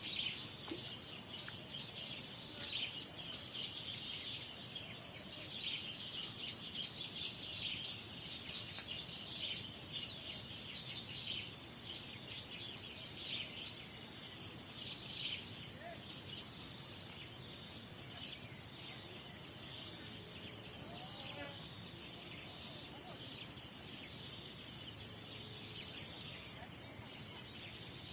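Outdoor insect chorus: a steady, high-pitched insect drone, with a busier flickering chirping a little lower in pitch that thins out about halfway through.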